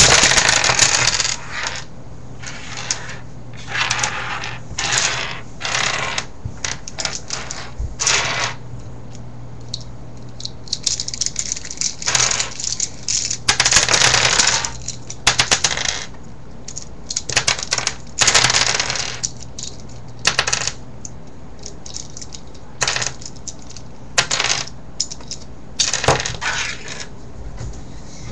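Loose plastic pieces of a V-Cube 4 puzzle cube clattering on a wooden table as they are scooped and pushed into a pile. The clicks come in repeated short bursts, with quieter gaps between them.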